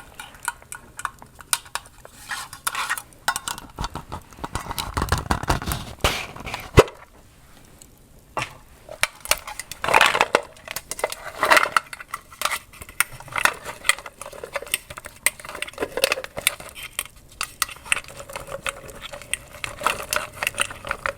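Hands rummaging through candy and its containers: a dense run of small clicks, clinks and crinkles, with one sharp click about seven seconds in and a brief lull just after.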